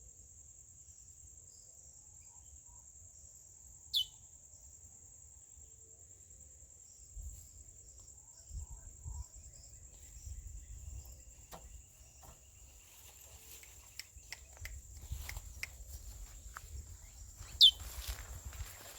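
A cricket-like insect buzzes in one steady high tone throughout. Twice, about four seconds in and again near the end, a single sharp, falling whistled chirp sounds: the call note of a curió (chestnut-bellied seed finch). From the middle on there are scattered light clicks and a low rumble.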